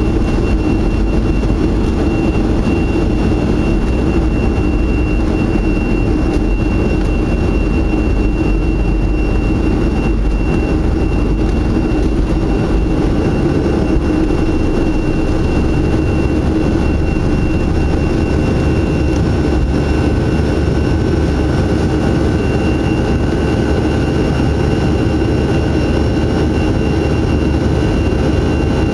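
Boeing 737-300's CFM56-3 jet engines heard inside the cabin, running steadily: a deep, even roar with a thin, steady high whine over it.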